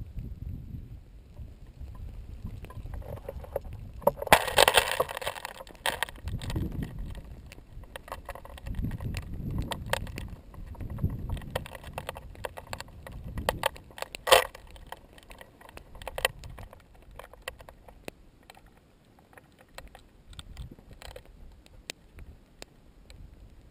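Wind gusting on a GoPro Hero 2's microphone, with scattered sharp clicks and crackles. A dense burst of crunching and scraping comes about four seconds in, and a single sharp click comes near the middle.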